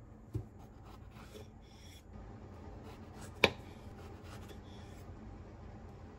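Kitchen knife slicing fresh strawberries on a small wooden cutting board, with faint scraping and rubbing. There is a soft low thump just after the start and a single sharp click about three and a half seconds in.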